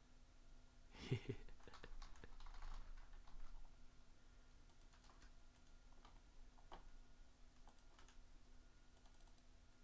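Computer keyboard typing: faint, irregular key clicks, with a louder flurry in the first few seconds.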